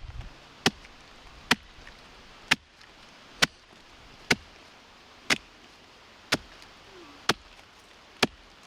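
Axe chopping into the split face of a log, nine even strikes about a second apart, hewing the surface flat.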